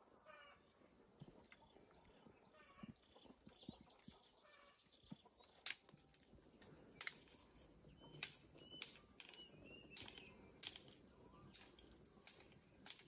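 Faint rural ambience: a steady high insect drone, a few short animal calls in the first few seconds, then sharp knocks about once a second from around the middle on.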